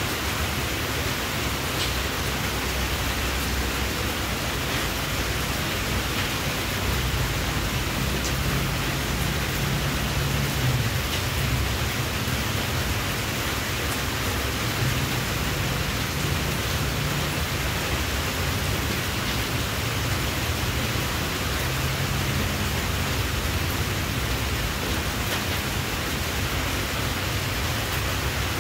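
Steady, even hiss of noise, with a low rumble underneath that swells and fades.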